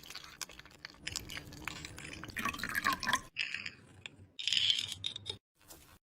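Food-preparation sounds: a run of small clicks and knocks mixed with dripping and splashing liquid, broken by a few abrupt silent gaps near the end.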